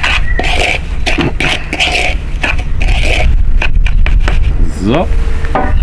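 A spoon scraping and stirring a dry cure of salt, sugar, coarse pepper and lemon zest in a plastic bowl, in quick repeated strokes about twice a second.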